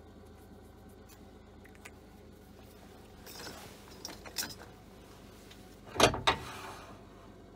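Handling noise: cloth rustling close to the microphone, a few small clicks, then two sharp knocks about a third of a second apart near the end.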